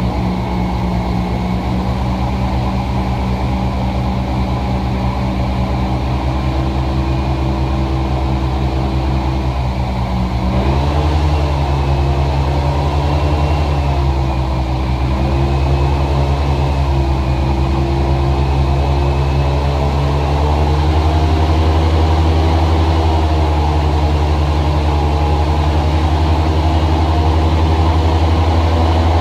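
Small boat's motor running steadily under way, its pitch shifting about a third of the way through and growing a little louder later on.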